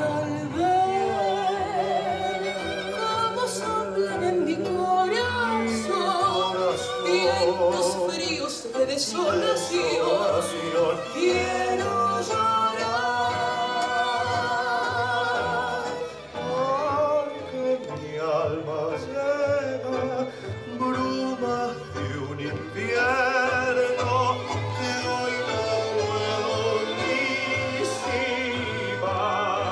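Recorded tango music playing: an orchestral vocal tango with a singer and strings.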